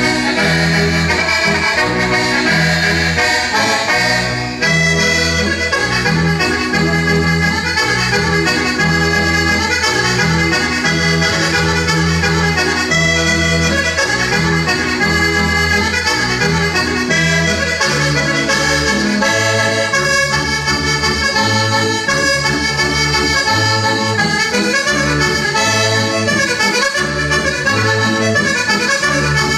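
Sardinian organetto (diatonic button accordion) playing a traditional dance tune: a busy melody over bass notes pulsing in an even beat.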